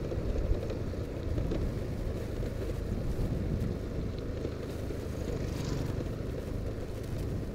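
Motorcycle engine running steadily at cruising speed, with wind rumbling on the microphone as it rides. Another motorcycle passes briefly about five and a half seconds in.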